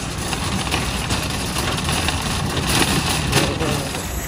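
Loaded shopping cart rolling over rough parking-lot pavement: a steady rumble with some rattling.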